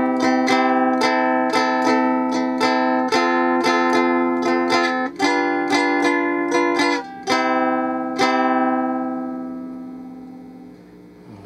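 Flying V-shaped electro-acoustic ukulele strummed through an amplifier: chords struck about twice a second, changing a few times, and the last one about eight seconds in left to ring and fade. It is slightly out of tune, by the owner's own account.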